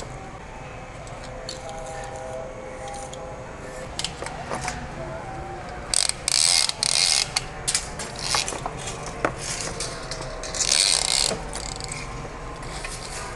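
Steel tape measure being pulled out and handled along a power tool's cable: scattered clicks, with two rasping slides of the blade about six seconds in and again near eleven seconds.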